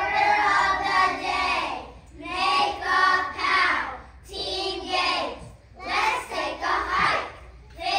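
A group of young children singing together in unison, in short phrases with brief pauses for breath between them.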